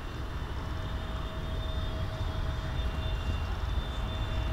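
Boeing 787-8 Dreamliner's jet engines on final approach: a steady rumble with a thin steady whine over it, growing slowly louder as the airliner nears.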